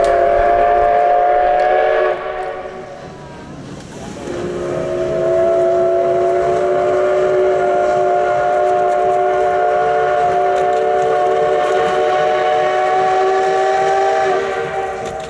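Steam whistle of steam locomotive C58 239, sounding several pitches at once: a blast that ends about two seconds in, then after a short pause one long blast of about ten seconds.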